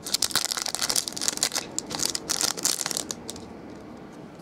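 Crinkling and rustling of clear plastic as trading cards are handled in their plastic wrapping, dying down about three seconds in.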